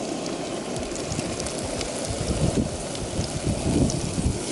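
Diced onions sizzling in butter in a frying pan on a camp stove, a steady crackle, with a few low bumps in the second half as a seasoned kokanee salmon fillet is laid into the pan near the end.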